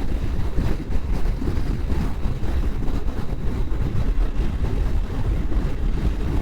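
Moto Guzzi V85's transverse V-twin engine running steadily while riding, with a steady low rumble and wind noise on the microphone.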